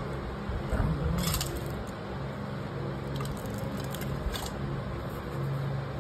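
Soft handling sounds of a large mango and a steel plate being moved on a counter, with a brief knock about a second in. A steady low hum runs underneath.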